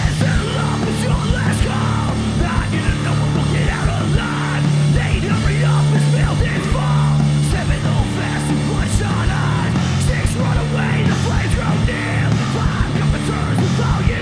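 A live rock band playing loud, heavy punk-style music, with yelled vocals over the band.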